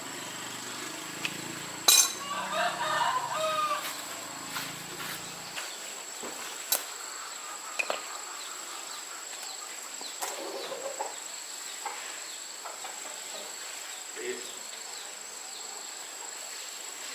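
Chickens calling, with a short call just after a loud sharp click about two seconds in, among scattered clicks and knocks and a steady high whine. A low hum stops about five and a half seconds in.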